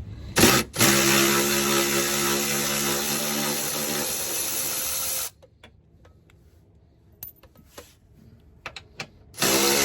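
Power tool running on the subframe bolts: a short burst, then a steady run of about four and a half seconds that stops suddenly. A few small clicks follow, and the tool starts again near the end.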